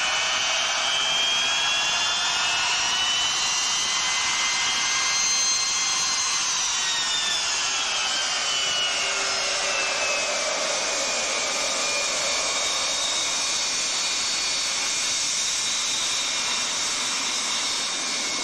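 Boeing 707's four Pratt & Whitney JT3D turbofans running as the jet rolls past: a steady jet rush under a high fan whine. The whine falls in pitch from about six seconds in.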